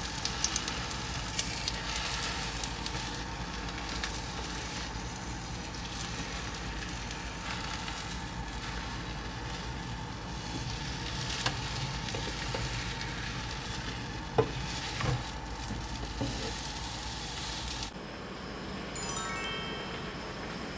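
Food sizzling in a hot frying pan, with a few sharp knocks about two thirds of the way through. The sizzling cuts off abruptly near the end and a brief ringing tone follows.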